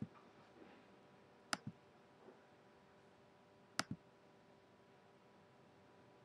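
Computer pointer-button clicks, each a quick double tick of press and release: one right at the start, then two more about two seconds apart, over near-silent room tone.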